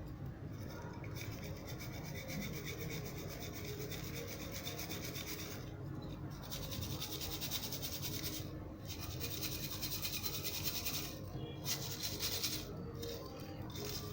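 A mesh scrubber rubbed and crunched through red dust, making a dense, gritty scratching in long strokes broken by a few short pauses.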